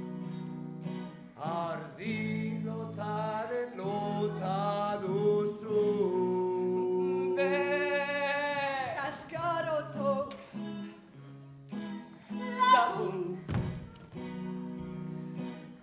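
A song sung over instrumental accompaniment: a singing voice moves through a melody above steady held low notes, with a long held note in the middle and a loud rising vocal swoop near the end.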